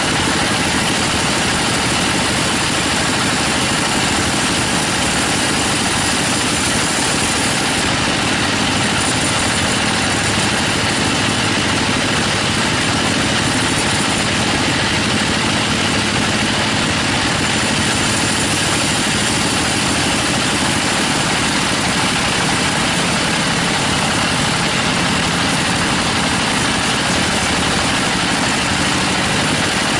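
Band sawmill running steadily, its band blade cutting lengthwise through a teak log.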